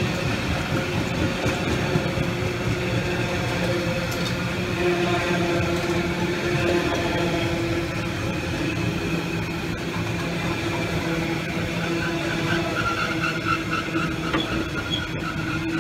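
Freight train's tank wagons rolling past close by: steady wheel-on-rail noise with a sustained hum. A faint pulsing squeal joins in over the last few seconds.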